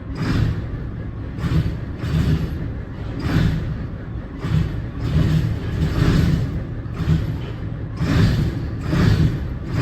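Case IH 2188 combine's diesel engine running unevenly just after a cold start, its sound swelling and easing roughly once a second.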